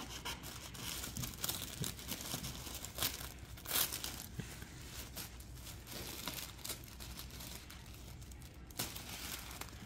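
Black tissue paper crinkling and rustling as hands unseal it and fold it back inside a gift box, with a couple of louder rustles about three and four seconds in.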